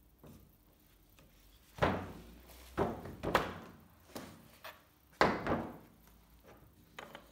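A series of sharp clunks and knocks as a Festool Domino XL joiner is handled, adjusted and set down on a plywood workbench top, the loudest about two seconds in and again about five seconds in.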